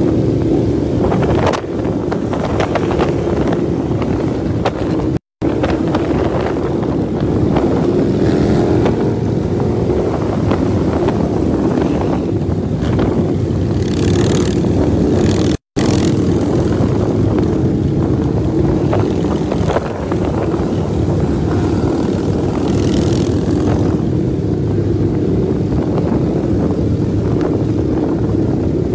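A large pack of cruiser motorcycles riding together at highway speed, heard from among the group as a loud, steady, dense engine drone. The sound cuts out for an instant twice.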